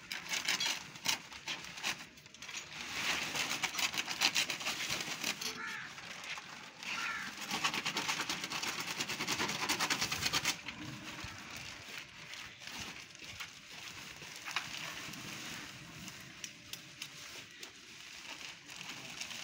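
Powdered earthing compound poured from plastic bags into an earth-rod borehole. It makes a dense crackling hiss, with the bags crinkling, from about two seconds in until about ten seconds in, then softer rustling and scattered clicks.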